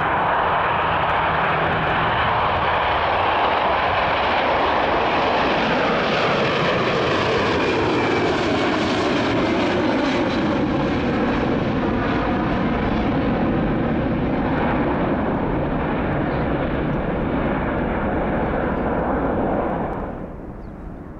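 Boeing 767's twin jet engines at take-off thrust: a loud, steady roar as the airliner lifts off and climbs past, with a whine that falls in pitch as it goes by. The sound drops off suddenly near the end.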